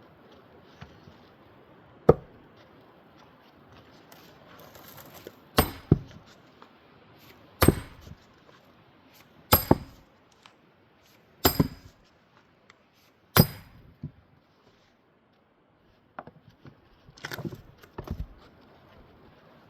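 Heavy splitting blows driven into a frozen, twisty-grained old-growth spruce butt round: about seven sharp strikes roughly two seconds apart, some with a bright metallic ring, then a few lighter knocks near the end. The wood is tough and slow to split.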